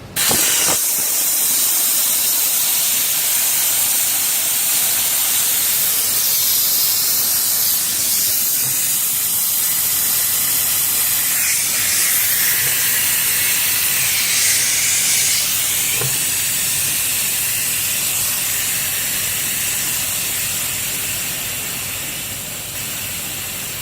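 Compressed air from a tyre machine's inflator hissing steadily into a motorcycle tyre's inner tube through a valve stem with the core removed, starting abruptly. The air is inflating the tube to seat the tyre bead on the rim, with pressure building toward about 70 psi.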